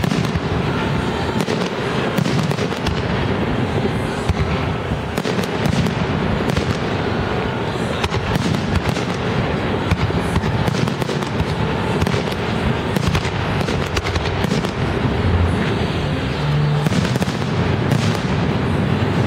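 Aerial fireworks shells bursting in quick succession, a dense, unbroken run of bangs and pops.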